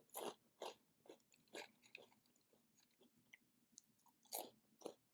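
Close-up chewing of crunchy Flamin' Hot Cheetos: a series of short, crisp crunches, about two a second at first, dying down, then two louder crunches near the end.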